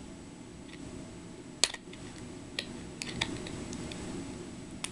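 A handful of sharp, irregular clicks and taps with faint handling noise: small plastic toy packaging being worked open to free the fang paste accessory.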